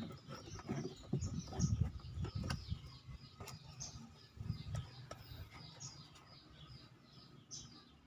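Handling noise and a few sharp plastic clicks as the rubber drain valve of a washing machine is worked loose and pulled out by hand, mostly in the first half. Small birds chirp repeatedly in the background throughout.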